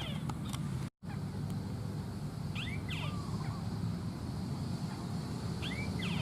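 A bird calling the same short phrase about every three seconds: a quick rising-and-falling whistle with a buzzy note, over a steady low hum. The audio drops out for an instant about a second in.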